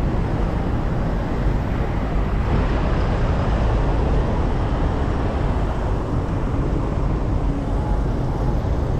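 Steady outdoor city street noise: an even rumble, heaviest in the low end, with no distinct events standing out.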